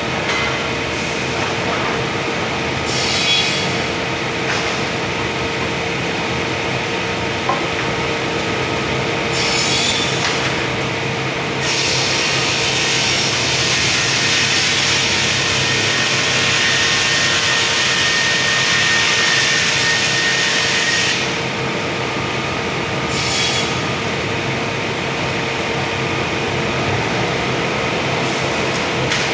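Sawmill machinery running with a steady hum while a saw cuts albasia wood: short bursts of cutting noise, then one long cut of about nine seconds in the middle.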